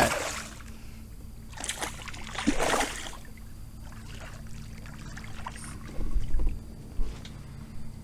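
A hooked northern pike splashing at the surface beside a kayak, two splashes between about one and a half and three seconds in, followed by a few low knocks near the end.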